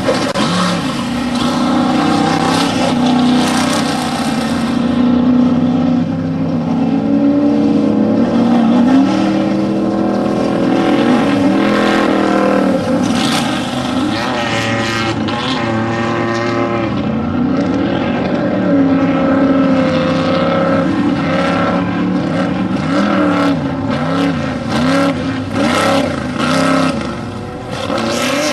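Off-road desert race vehicles' engines running hard, the pitch rising and falling over and over with throttle and gear changes as they race by.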